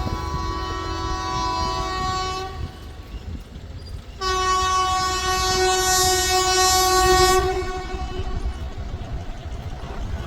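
Train horn sounding two long blasts: the first is already going and stops about two and a half seconds in, and the second, louder one starts about four seconds in and holds for about three seconds. Under both runs the low rumble of the train.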